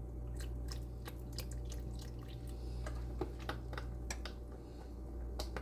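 Chicken broth being poured into a pot of chicken and dumplings: irregular small splashes and clicks from about half a second in until near the end, over a steady low hum.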